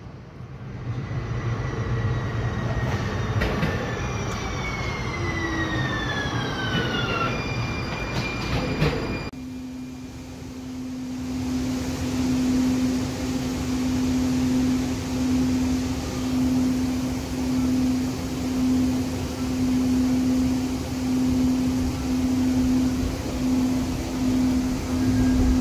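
Siemens light-rail train pulling into the platform, whining tones falling in pitch as it slows. Then, from inside the car, the train running with a steady low hum over rolling noise that swells and dips every second or so.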